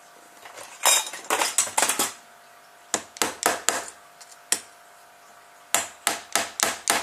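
Small hammer tapping a 2 mm metal welding rod into the hub of a plastic propeller, a tight hammer-tap fit: sharp metallic taps in short runs, a quick run about a second in, about four more around three seconds, and a steady series of taps near the end.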